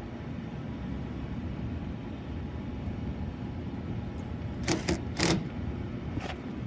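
Steady low rumble, with a short cluster of sharp metallic clinks and rattles about four and a half to five and a half seconds in and one more clink near the end.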